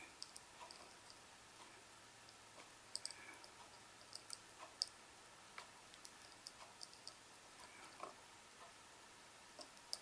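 Faint, irregular clicks of a budgerigar's beak pecking and tapping at a plastic toy piano.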